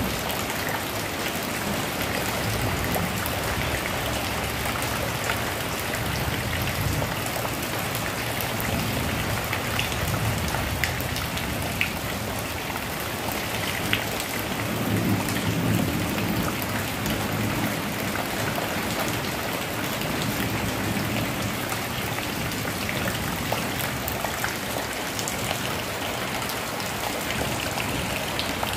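Heavy rain falling steadily on corrugated sheet roofs and a waterlogged courtyard, with scattered sharp drop impacts.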